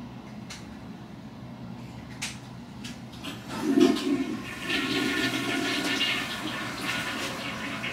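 Toilet flushing: after a few light clicks, a burst of water about four seconds in, then steady rushing water.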